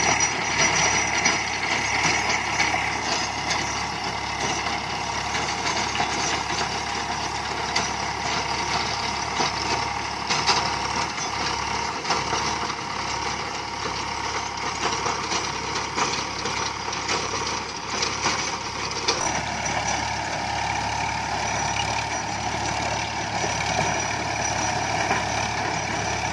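Eicher 548 tractor's three-cylinder diesel engine running steadily under load, driving a rotavator whose blades churn through the soil.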